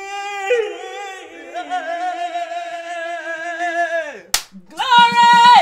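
Women singing long, held, wordless notes with a wavering vibrato. A single sharp clap-like hit comes about four seconds in, and then a loud, higher held note near the end.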